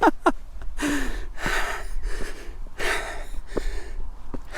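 A person panting heavily, with quick, loud breaths in and out about every half second: out of breath from climbing a steep hill.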